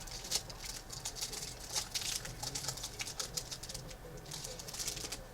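Trading card pack wrapper crinkling and crackling as it is torn open and the cards are pulled out, in a quick irregular run of sharp rustles.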